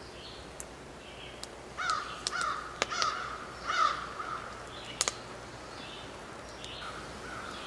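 A crow cawing: a run of harsh caws in the middle and two fainter ones near the end, with small birds chirping softly in the background.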